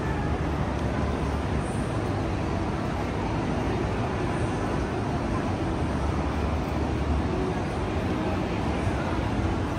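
Steady city street noise with a low rumble of vehicle traffic.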